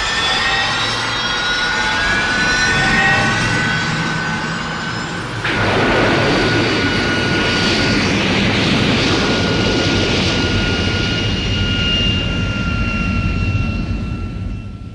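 Mechagodzilla (1993) sound effect: a jet-like mechanical roar with several rising whines, changing abruptly about five seconds in to a steady roar with a held high whine, then beginning to fade near the end.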